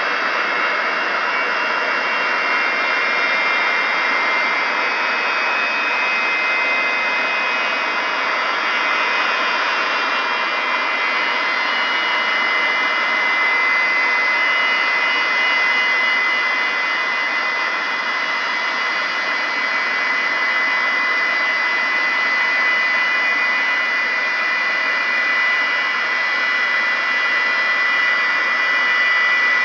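Antonov An-225 Mriya's six Progress D-18T turbofans running at taxi power: a steady jet rush with a high whine.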